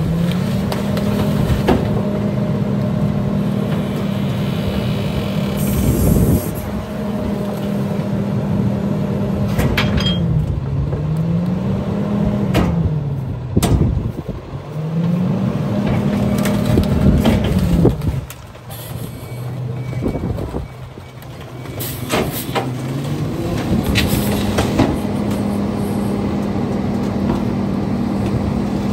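Heil rear-loader garbage truck engine sped up to drive the packer hydraulics, holding a higher pitch, dipping and rising twice, dropping back to idle for a few seconds past the middle, then speeding up again. Scattered sharp knocks and cracks come through over it.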